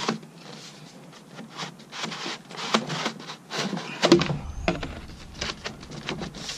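Plastic blower tube sections of an EGO backpack leaf blower being slid and adjusted by hand: a string of clicks, knocks and rubbing, with a louder clack about four seconds in.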